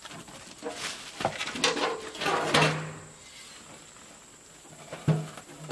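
Plastic packing wrap rustling and crinkling as a thin sheet-metal smoker barrel is handled and unpacked, with a sharp knock about a second in and another near the end.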